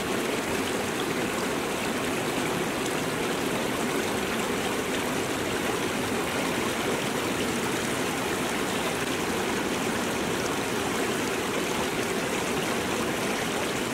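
Shallow rocky mountain stream flowing over stones, a steady splashing of water.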